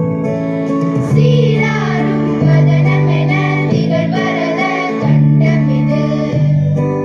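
A group of schoolgirls singing a song together into microphones over held instrumental chords.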